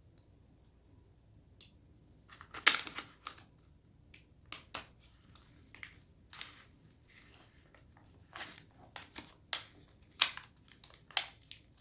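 Store packaging of a cheap folding multi-tool knife being opened by hand: irregular crackles, snaps and clicks, the loudest about a third of the way in.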